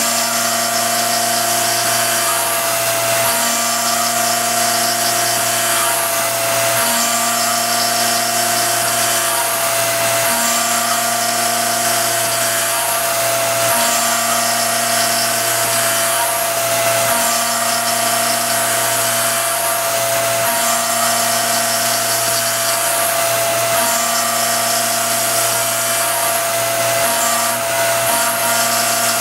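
RF45 CNC milling machine cutting 3D lightening panels into a 1911 pistol slide with a small end mill. The spindle gives a steady whine, and the cutting noise changes in a regular cycle about every three and a half seconds as the tool sweeps back and forth across the panel.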